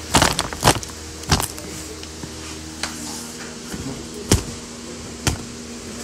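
Handling noise: a series of irregular sharp clicks and knocks, the loudest under a second in and again past four seconds, over a steady low electrical hum.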